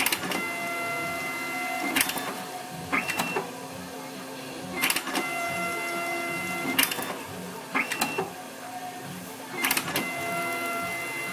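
Zebra ZXP Series 1 plastic card printer printing a card. Its motors whir in a series of passes, each pass starting and ending with a sharp click, about every one to two seconds.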